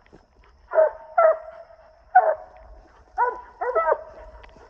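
Coonhounds barking at the base of a tree, about five short barks, some in quick pairs: the hounds have a raccoon treed.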